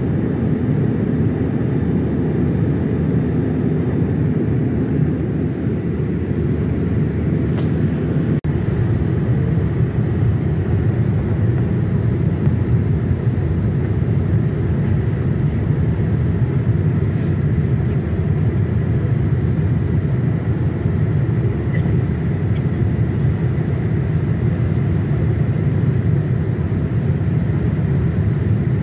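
Steady low rumble of an airliner's jet engines and rushing airflow heard inside the cabin during the descent to land, with a faint thin whine above it. The rumble briefly dips about eight seconds in.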